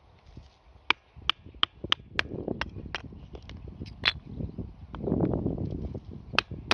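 Small wood campfire crackling with sharp, irregular pops, a cluster of them in the first couple of seconds, over a low rustling rumble that swells twice.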